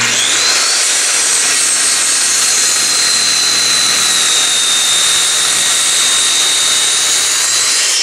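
Corded circular saw started and cutting through a wooden landscaping timber: it comes on suddenly at full speed, and its high motor whine settles a little lower in the first second as the blade takes the load, then runs steadily.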